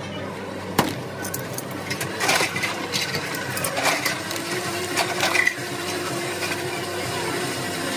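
Plastic bag and wrapping crinkling in bursts, with kitchen items being handled and a sharp click about a second in. A steady hum comes in near the end.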